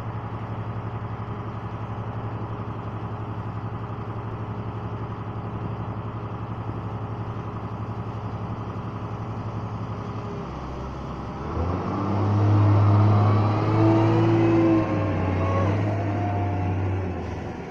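Liebherr L 556 wheel loader's diesel engine idling steadily close by. About eleven seconds in it revs up and gets much louder, with whining tones sliding up and down as the loader moves off, then eases back near the end.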